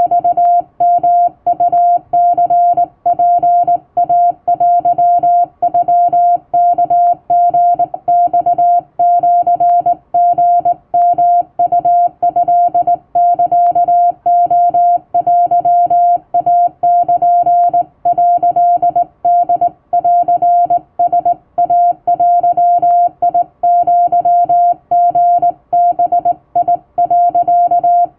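Hand-keyed Japanese wabun Morse code: one steady mid-pitched beep tone keyed on and off in short and long elements without pause, with a faint low hum beneath.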